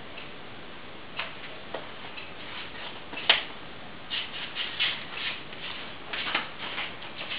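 Steady low hiss with scattered light clicks and ticks at irregular spacing, the sharpest one about three seconds in and a loose cluster of them in the second half.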